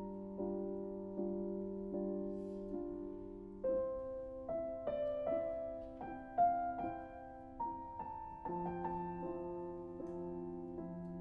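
Gentle background piano music: soft chords struck about once a second, then a slow melody of single notes over held bass notes.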